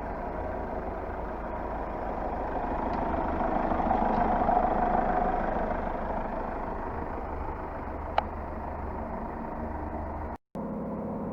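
Freshly rebuilt Hyundai Starex 2.5 diesel four-cylinder engine idling steadily, warm after start-up. It grows louder briefly about four seconds in, and there is a single click near the end.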